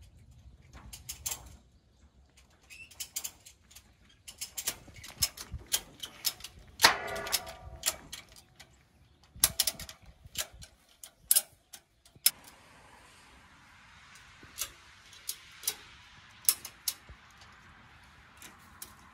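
Irregular metallic clicks, clanks and knocks of tie-downs being fastened to secure a truck on a flatbed trailer, with a longer buzzing rattle about seven seconds in. A steady faint hiss sets in about twelve seconds in.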